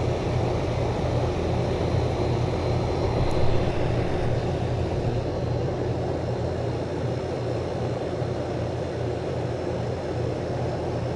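Outdoor air-conditioning condensing unit running: a steady low hum of the compressor under the even whoosh of the condenser fan.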